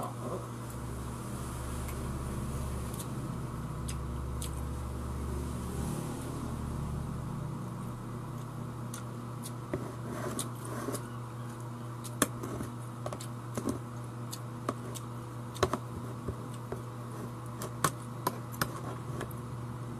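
Eating sounds: a spoon clicking and scraping on a plate of rice, the sharp clicks coming mostly in the second half, over a steady low hum.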